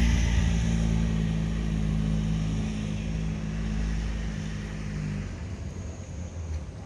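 An engine running with a steady low hum, fading away over several seconds as it moves off; its tone drops out about five seconds in.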